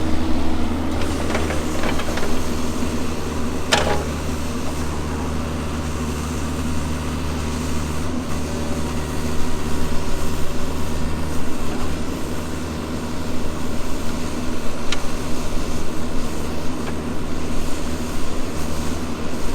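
Diesel engine of earthmoving equipment running steadily, with a sharp knock about four seconds in and a fainter click later.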